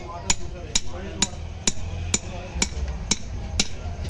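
Hammer tapping a steel punch against the governor flyweight assembly on a diesel engine's camshaft gear, metal on metal, in an even rhythm of about two strikes a second. The taps stake the governor locks so they cannot work loose while the engine runs.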